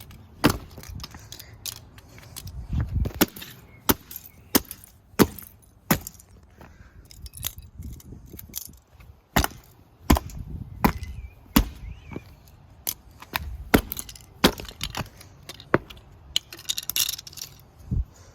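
Plastic push-button switch block from a 1990s Bonaire desk fan being smashed apart with repeated sharp blows at an irregular pace, about one or two a second.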